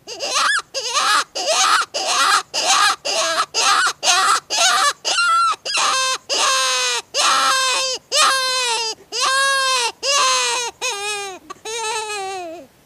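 Mouth-blown predator distress call (the Maineiac Distress Call) imitating a prey animal in distress, blown to lure predators: first a rapid run of short cries, about two to three a second, then from about six seconds in longer, wavering wails that rise and fall in pitch.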